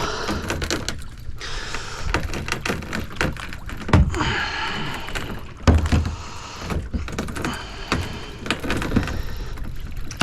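Knocking and handling noise with bursts of hiss, loudest in two hard thumps about four and six seconds in.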